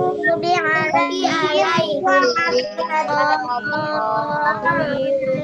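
Several children's voices chanting a prayer together in a sing-song recitation over a video call, with held, drawn-out notes.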